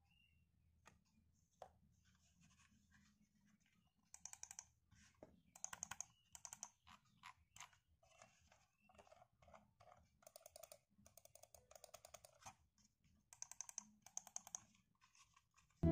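Faint clicking from Dell computer mice being handled on a mouse pad: short bursts of quick clicks, starting about four seconds in.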